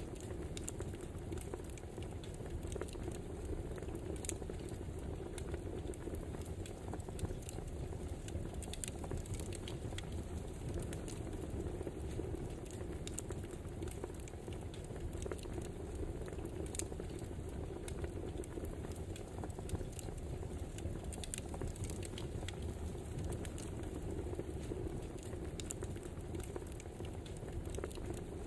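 Wood fire crackling: a steady low rush with frequent small, irregular pops and snaps.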